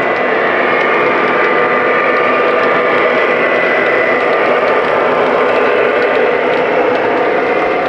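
Lionel O gauge Union Pacific diesel locomotives running past, with a steady diesel engine sound and the rumble of wheels on the track, and a steady high whine over it.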